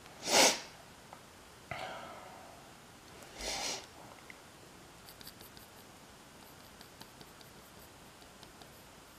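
A short, loud rustle about half a second in and another about three and a half seconds in, with a light knock between them, then faint scratching and ticking of a mechanical pencil drawing on paper.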